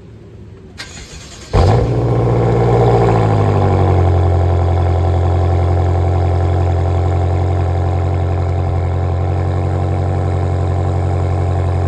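BMW M6 engine starting: it fires with a sudden loud burst about a second and a half in, flares high, and its pitch falls over the next two seconds or so into a steady idle.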